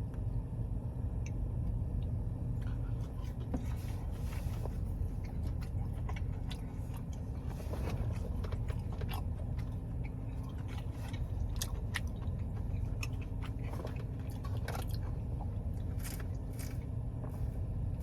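Close-up chewing of a fried cheese bite, with scattered soft mouth clicks and crunches over a steady low hum.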